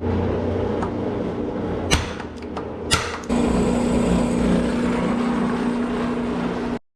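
Shop machine motor running with a steady hum that grows stronger and more tonal about a third of the way in, with two sharp metallic knocks about a second apart before that.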